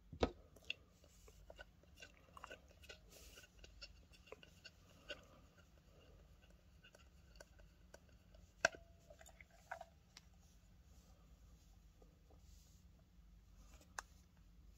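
Boss OD-1 overdrive pedal handled by hand: faint scattered taps and clicks as its footswitch plate is pressed. The sharpest clicks come about a quarter second in and a little before nine seconds in.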